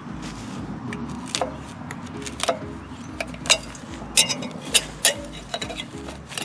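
Irregular sharp clicks and snaps of a hand tool cutting and pulling tangled debris off a tiller's tines, about a dozen in a few seconds.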